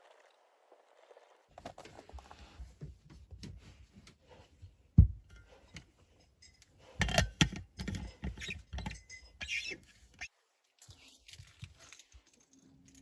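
Scattered knocks, clicks and rustling with a low rumble underneath, one sharp knock about five seconds in and a quick run of knocks a couple of seconds later.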